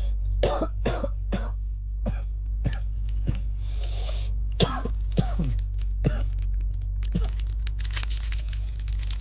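Pokémon card box and pack packaging being handled and unwrapped: a run of short sharp crackles and squeaks, several falling in pitch, then dense rapid crinkling of plastic wrap from about seven seconds in.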